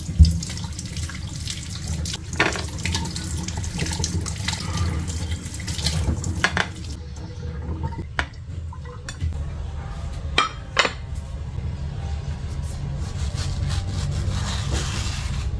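Tap water running in a kitchen sink as mangoes are rinsed under it, with a few knocks of fruit and dishes. About halfway through the water stops, and several clunks follow as the mangoes are set down on a ceramic plate.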